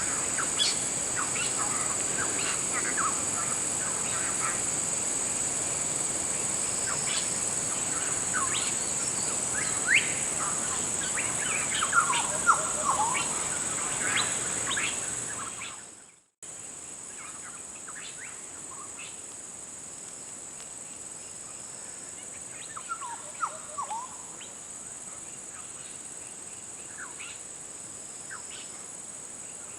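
Steady high-pitched drone of insects with many short bird chirps and a few quick descending calls over it. About halfway through the sound fades out and returns quieter.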